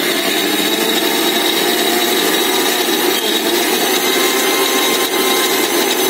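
Electric mixer-grinder running loudly and steadily, its motor blending cooked horse gram with a little of its cooking water into a paste.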